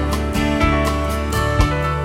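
Background music: country-style tune with acoustic guitar and a steady beat.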